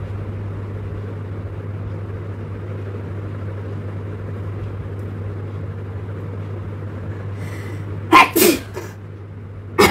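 One loud sneeze about eight seconds in, brought on by tickling the nose with a long blade of grass. A steady low hum runs beneath it.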